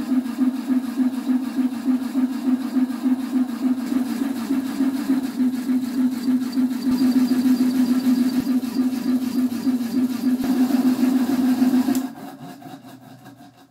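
Homemade high-pressure PCP air compressor, an electric motor belt-driving two finned piston cylinders, running steadily with a rhythmic pulsing hum while filling an air cylinder. Near the end it is switched off and the sound drops sharply and fades away.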